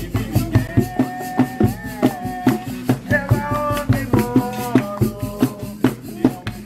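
Music with a quick, steady shaker and drum beat under a melody of held, stepping notes.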